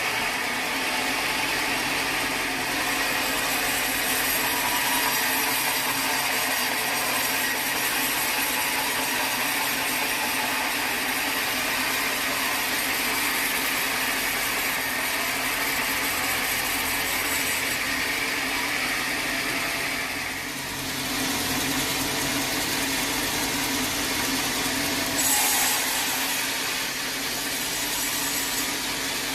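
Sawmill saw running and cutting through a log: a steady, loud machine noise with a brief dip about twenty seconds in.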